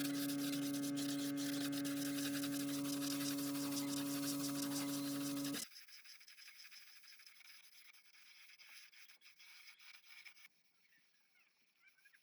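A steady hum at one even pitch that stops abruptly about five and a half seconds in, followed by faint rubbing.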